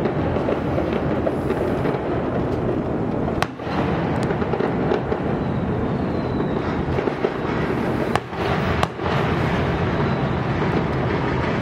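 Aerial fireworks going off: a dense, continuous din of bursts and crackle, with a few sharp cracks standing out, about three and a half seconds in and twice around eight to nine seconds in.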